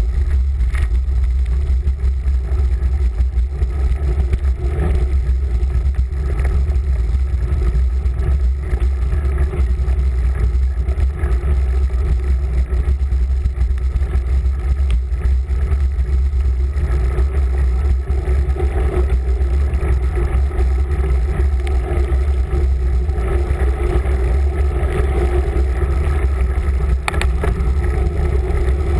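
Swollen river in flood rushing past in a steady rumble, with wind buffeting the microphone.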